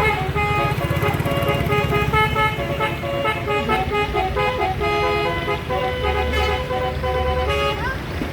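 Basuri telolet horn on a bus playing a quick melody of short notes that step up and down in pitch, over the low rumble of the bus's engine.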